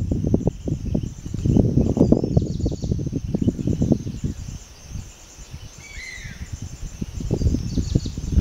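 Forest ambience: insects chirping in a steady pulsing drone, with a bird giving short calls about two and six seconds in. Underneath is a low rumbling noise that dies away past the middle and comes back near the end.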